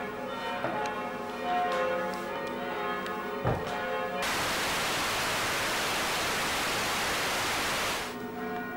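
Bells ringing, many overlapping tones, with one sharp click about three and a half seconds in. About four seconds in, the bells give way to a loud, even hiss like television static, and they return near the end.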